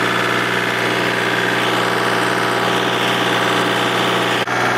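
Small tractor's engine running steadily while clearing snow with its snowblower, with a brief break about four and a half seconds in.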